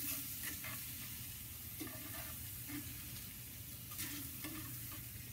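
Red onions sizzling steadily as they sauté in duck fat and butter in a hot cast iron pan, with a few light clicks and scrapes of tongs stirring them.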